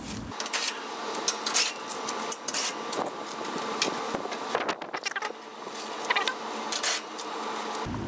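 Scattered clicks, knocks and rustles of handling: a cordless impact driver and a loose panel from the condenser being set down and a tool bag handled.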